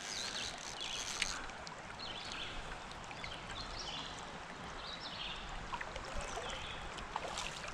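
Steady rush of a shallow stream's current flowing and rippling.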